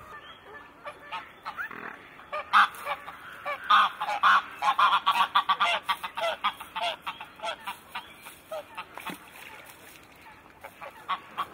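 Geese honking: a quick run of many short calls, loudest and thickest in the middle, thinning out near the end.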